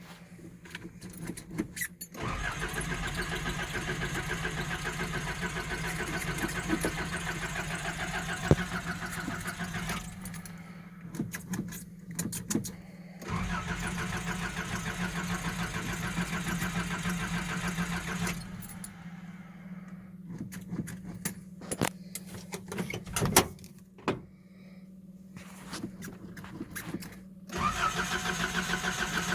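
Nissan 720 pickup's starter cranking the cold engine in three long tries, with the engine not catching and with clicks in the pauses between tries. The owner takes the hard starting for a failing fuel pump.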